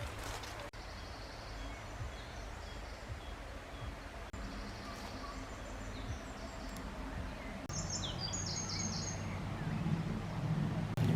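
Small birds chirping in short runs of quick high notes, over a steady low outdoor rumble that grows louder near the end.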